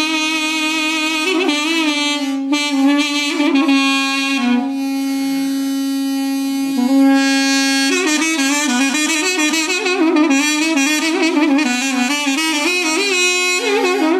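Instrumental music: a wind instrument plays an ornamented melody with fast trills and wavering notes over a steady held drone, settling on long held notes in the middle.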